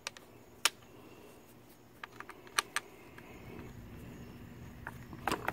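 Sharp, irregular plastic clicks and taps as the line spool and cap of a RYOBI cordless string trimmer head are handled and pressed into place.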